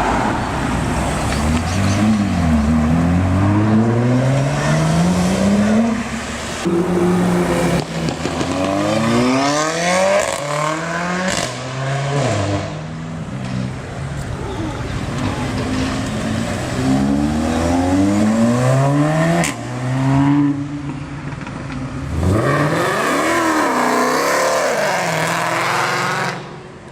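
Sports car engines accelerating hard one after another. Each engine's pitch climbs steeply, drops back at an upshift and climbs again, the cars passing in several separate runs.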